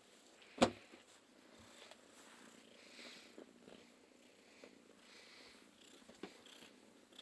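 A cat purring softly, close to the microphone, with one sharp knock about half a second in.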